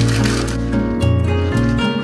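Background music: sustained pitched tones over a bass line whose notes change about every half second.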